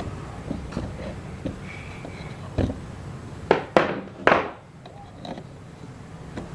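Irregular knocks and taps, with three louder sharp knocks close together about halfway through.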